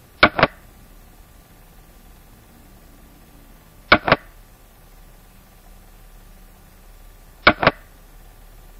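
Xiangqi game software's move sound: a quick double clack of a piece being picked up and set down, heard three times, about three and a half seconds apart.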